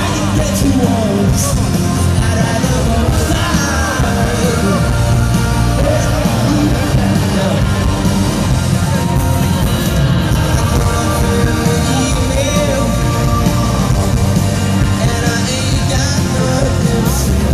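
Indie rock band playing live in a large hall: electric guitars and drums, loud and steady, with a voice singing over them.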